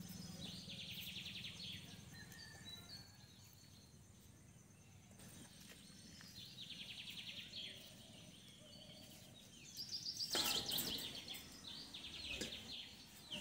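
Faint bird calls: a quick, high rattling trill repeated several times. About ten seconds in comes a short clatter as a steel plate is set over a steel pot of water.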